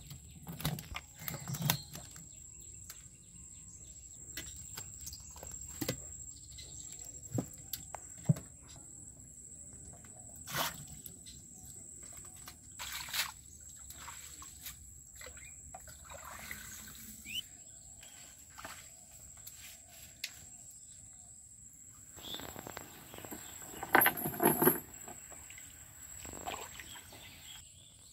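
Scattered light knocks, clicks and splashes from a bamboo fish trap being handled and hands working in shallow weedy water, with a louder splashing rustle near the end. Birds chirp now and then over a steady high whine.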